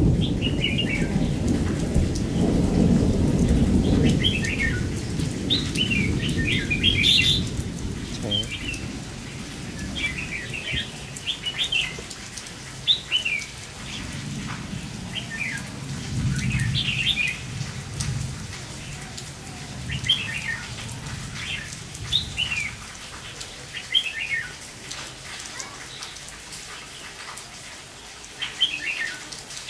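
Red-whiskered bulbuls give short, repeated chattering calls every second or two over steady rain, the 'ché' calls of birds squaring off. Low rumbles sound in the first few seconds and again midway.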